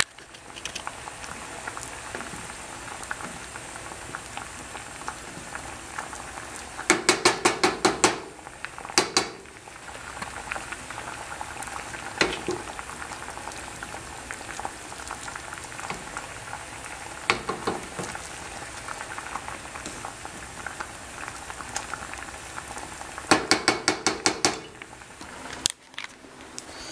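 Cranberries boiling hard in water in an enamel saucepan, a steady bubbling hiss as the berries are cooked down to pop them for homemade cranberry juice. A wooden spoon stirs them, and twice, a few seconds in and near the end, it knocks against the pan in a quick run of about seven sharp taps.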